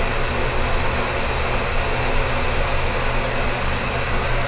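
Broan-Nutone 60-CFM bathroom exhaust fan upgrade kit running steadily in its ceiling housing with the grille off: a pretty loud rush of air over a low steady hum. It is a 3.0-sone fan, about as loud as the original builder-grade fan it replaces.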